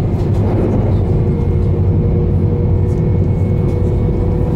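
Cabin running noise of an E2 series 1000 Shinkansen train at speed: a steady low rumble with a faint, steady whine held on one pitch.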